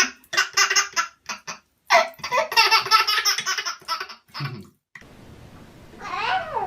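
A small child laughing in quick, repeated bursts, in two long runs of giggles, then a single short rising-and-falling call near the end.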